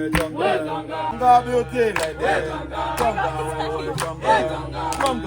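Several voices chanting and singing together over a steady beat that falls about once a second.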